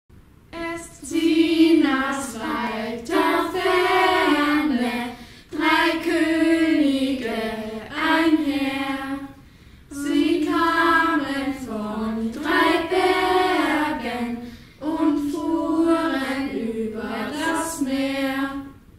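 A small group of children singing a star-singers' Epiphany song together, in four phrases with short breaths between.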